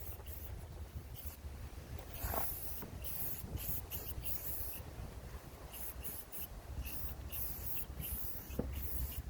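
Aerosol spray-paint can spraying in short hissing bursts, with wind rumbling on the microphone.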